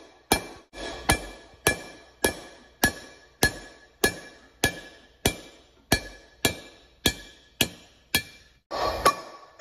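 Hammer blows on a steel drift at an even pace, about one every 0.6 seconds, each with a short metallic ring, driving a tight old valve guide out of a Sapphire Cosworth aluminium cylinder head.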